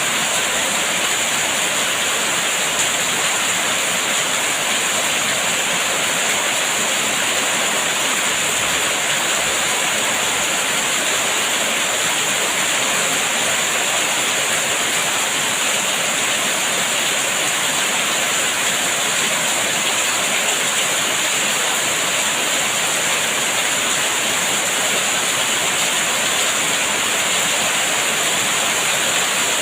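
Steady, even rain: a dense hiss with no individual drops, thunder or changes.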